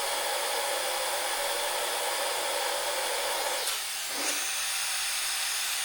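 Compressed air hissing steadily from a CNC airblast nozzle, air only with no cutting oil yet, while its needle valve is being adjusted; the flow dips briefly a little past the middle.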